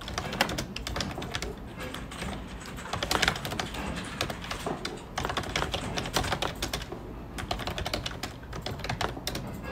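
Typing on a computer keyboard: a fast run of key clicks with a few short pauses.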